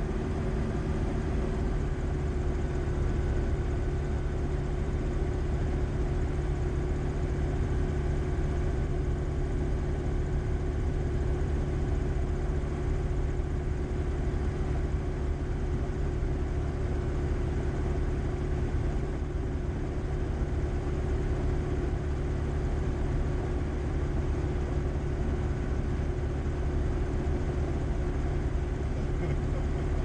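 Rotax 912 four-cylinder engine of an AeroTrek/EuroFox light sport aircraft idling steadily, its propeller turning slowly, heard from inside the cockpit.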